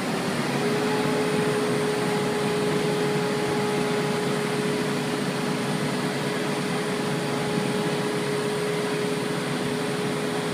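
A truck-mounted concrete pump running: a steady mechanical whir with a constant mid-pitched whine.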